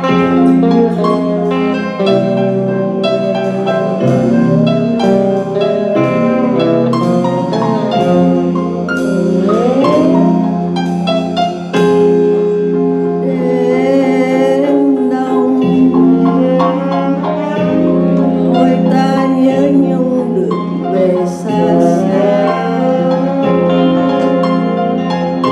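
Live band playing a slow ballad: electric keyboard over a drum kit, with a sliding note rising about ten seconds in.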